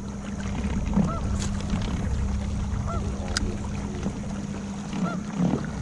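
Geese honking, three separate calls a couple of seconds apart, over a steady low hum from the boat's motor.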